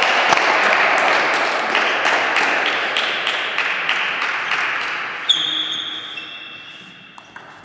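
Table tennis ball clicking as it is bounced between points, with two hard hits about five and six seconds in that ring out as high pings. Over it a loud, even noise from the hall fades away over several seconds.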